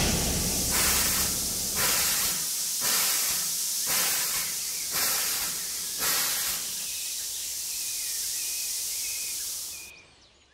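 Steam locomotive letting off steam: a loud hiss in puffs about once a second, settling into a steady hiss that dies away near the end.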